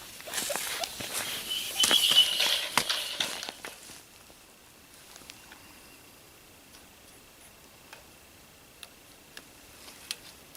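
Rustling, scraping and clicking of someone moving about and handling things for the first few seconds, loudest about two seconds in. Then it drops to faint scattered ticks.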